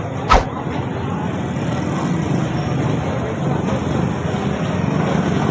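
One sharp metal clack about a third of a second in, as tongs strike the steel skewer of a grilled chicken, over a steady rumble of road traffic.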